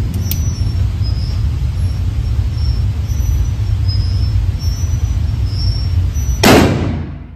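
A .44 Magnum revolver fires a single shot about six and a half seconds in, the loudest sound here, ringing out briefly in an indoor firing range. Before the shot there is only a steady low rumble.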